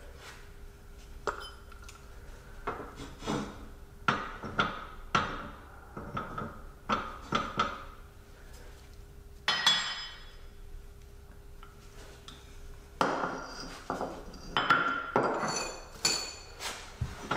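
Steel press cups and tool parts of a bushing press-and-pull kit clinking and knocking together as they are handled and fitted, a string of sharp metallic clinks, some ringing briefly. A faint steady hum sits underneath until about two-thirds of the way through.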